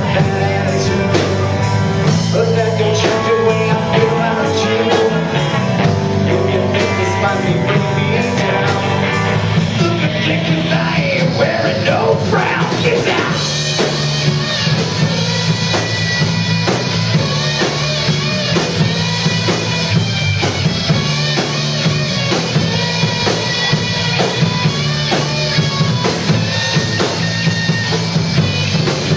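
Live rock band playing loud, electric guitars and drum kit together, with the cymbals brighter from about halfway through.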